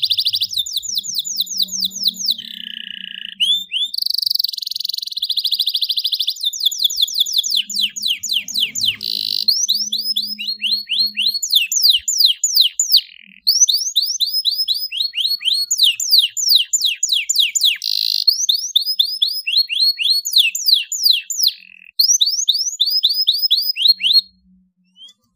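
Domestic canary singing a long, continuous song. Fast runs of quick downward-sweeping notes alternate with buzzy rolls, with brief breaks, and the song stops about a second before the end.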